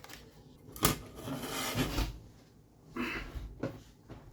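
Handling noises: a sharp knock about a second in, then a stretch of rustling and another knock near the three-second mark.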